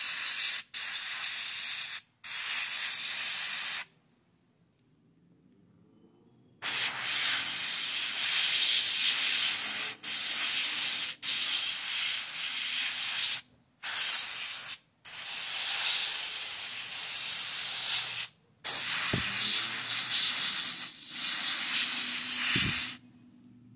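Gravity-feed airbrush spraying a blue base coat of paint onto a small plastic model seat: a steady hiss in bursts of one to several seconds, stopping and starting as the trigger is released, with a longer pause about four seconds in.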